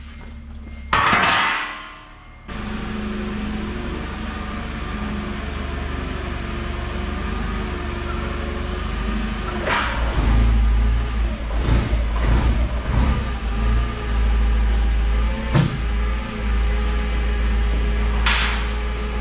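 A truck engine running steadily, with several sharp metal clanks in the second half as steel angle-iron sections are handled.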